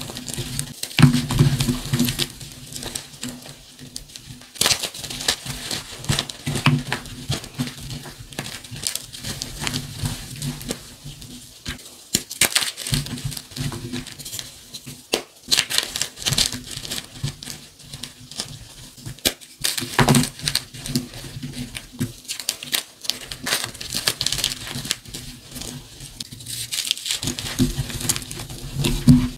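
Hands squeezing and crumbling blocks of gym chalk and dyed gym chalk between the fingers: dry, irregular crunches and crackles of the blocks breaking down into powder.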